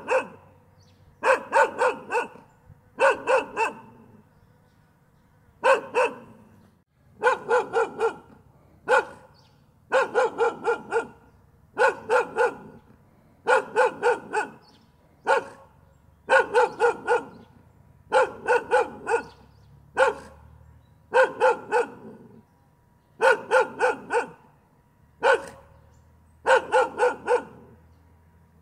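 A dog barking over and over in quick runs of two to four barks, with short pauses between the runs.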